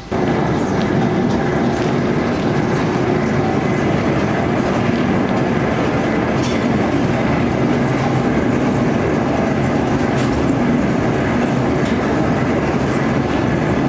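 Cotton-seed oil mill machinery running: a loud, steady mechanical rattle and rumble with a low hum underneath.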